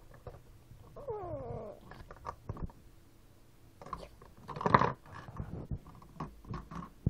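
A drawn-out, falling meow-like cry about a second in, then scattered light clicks and taps of small plastic toy figurines handled against a desk and metal lamp base, with a louder rustling burst just before five seconds.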